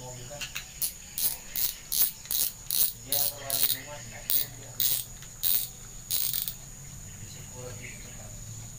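Maguro Thor 8000 spinning reel clicking in short ratcheting bursts, about two or three a second, as the front drag knob is turned down on the refitted spool; the clicking stops about six and a half seconds in.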